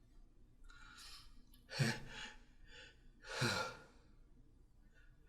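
A person's breathy, sighing gasps building up to a sneeze. A faint breath comes about a second in, then two louder 'ahh' gasps whose pitch falls, about two and three and a half seconds in.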